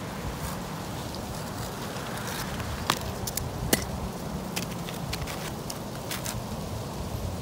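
A few sharp clicks and light taps as asphalt ridge cap shingles are handled on a roof, the two loudest about three and four seconds in. Under them runs a steady low rumble.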